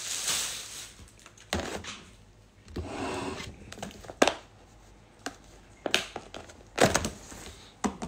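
Handling noise: a few sharp knocks and clicks of objects being picked up and set down, with a brief rustle about three seconds in.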